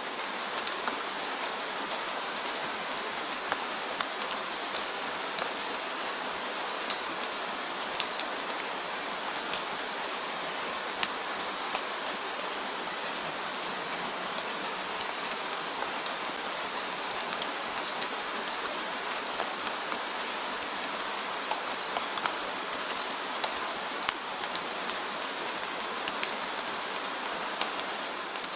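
Steady rain falling, an even hiss with many scattered sharp drops tapping on a surface.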